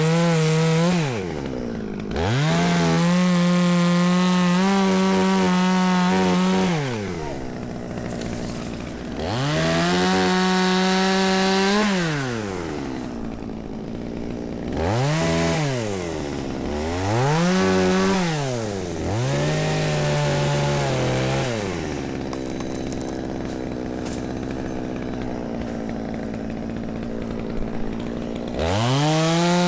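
Two-stroke chainsaw cutting soft maple. It is brought up to full throttle and held for a few seconds at a time, then drops back toward idle, over and over. Near the end there is a longer stretch at low speed before it revs up again.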